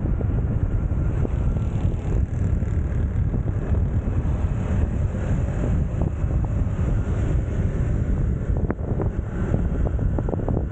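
Wind buffeting the microphone of a car-mounted 360 camera while the car drives, a steady low rumble, with a few brief ticks near the end.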